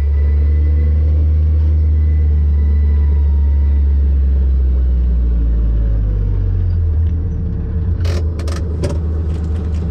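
Kawasaki side-by-side utility vehicle's engine running at a steady cruise, heard from inside its open cab as a loud, low drone. About seven seconds in the drone drops and turns uneven, and a few sharp knocks and rattles follow near the end.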